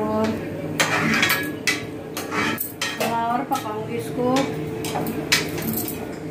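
A steel ladle stirring food in a metal kadhai, scraping and clinking against the pan in an irregular run of knocks.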